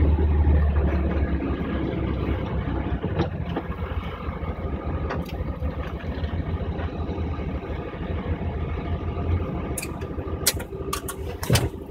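A 1973 VW Beetle's air-cooled flat-four engine running as the car drives, heard from inside the cabin. It is loudest in the first couple of seconds, then steadier and quieter. A few sharp clicks come near the end.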